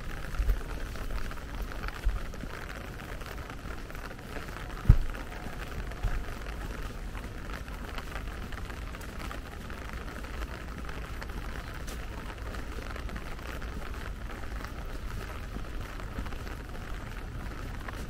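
Steady light rain falling on wet paving, with a few dull low thumps; the loudest comes about five seconds in.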